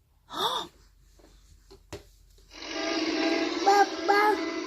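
A Saypen electronic talking pen playing a short synthesized jingle through its small speaker: a held buzzy tone with higher notes stepping in and out. A brief rising-and-falling voice sound comes about half a second in.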